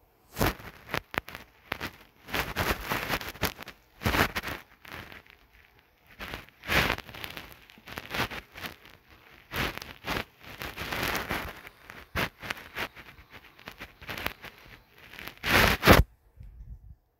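Irregular rustling and crackling noise in uneven bursts of different lengths, starting about half a second in and cutting off suddenly about a second before the end.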